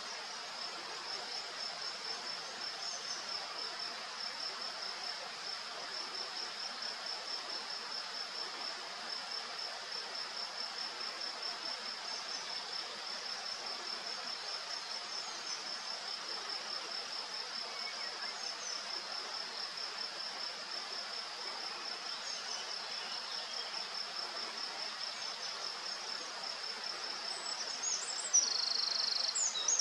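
Steady high-pitched insect chirping, pulsing evenly several times a second. Faint short chirps come now and then, and a louder, fluttering high trill joins near the end.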